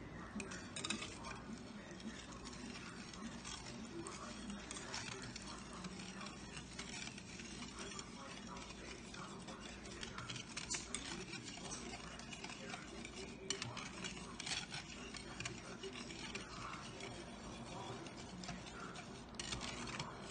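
Wire whisk beating a runny bread pudding mixture in a ceramic bowl, its wires scraping and ticking against the bowl over and over.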